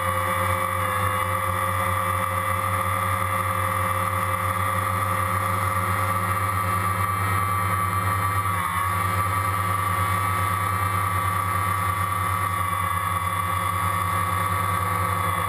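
Steady motor drone of the aircraft carrying the camera aloft: a constant low hum under a high, unchanging whine, with no change in pitch or level.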